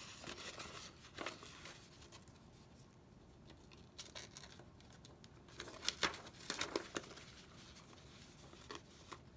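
Faint rustling and crinkling of cardstock and ribbon handled by hand as a patterned ribbon is pulled through punched holes. A few louder rustles come about a second in and again around six to seven seconds in.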